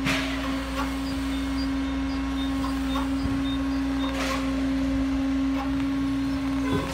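Liebherr LH 26 M wheeled material handler running: a steady whining tone over a low engine hum, with a loud metal crash as the grapple handles scrap at the very start and another about four seconds in.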